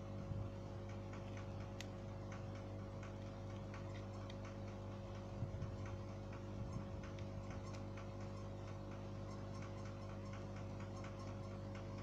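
Steady electrical hum with a faint, regular ticking of about two ticks a second, like a clock. About halfway through come a few soft scrapes and clicks of the phone being handled.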